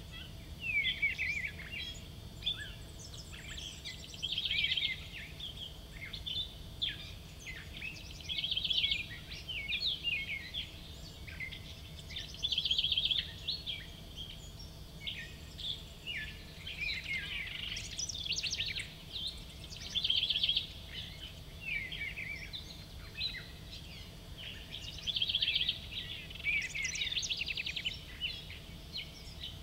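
Several songbirds singing and chirping, one repeating a short trilled phrase about every four seconds, over a steady low background rumble.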